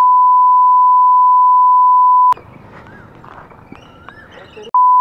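Steady pure beep of a censor bleep, the kind an editor lays over swearing, cutting off about two seconds in and coming back near the end.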